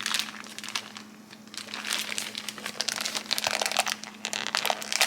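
Powdered sugar package being shaken and squeezed to get the sugar out, giving rapid crinkling and crackling, busiest from about a second and a half in; the sugar is clumped and comes out in chunks rather than sprinkling.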